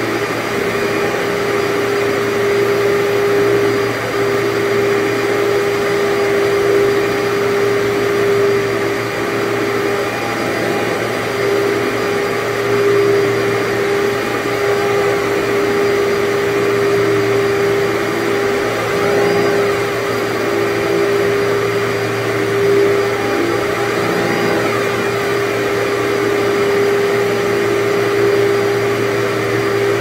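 Workhorse commercial upright vacuum cleaner running steadily while pushed over carpet, its motor giving a constant hum over a loud rush of suction; the hum wavers briefly a few times.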